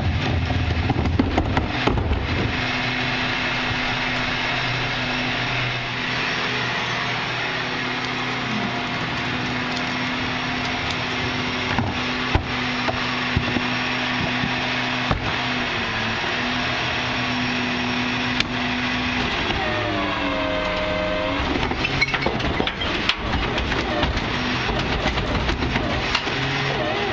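Rear-loading garbage truck, a Crane Carrier LET with a Wayne Royal GT body, running with a steady low hum from its engine and hydraulics and scattered clanks and knocks. About twenty seconds in, the pitch dips and then climbs as the engine revs. Knocks and clatter follow as the claw tipper lifts a wheeled recycling cart.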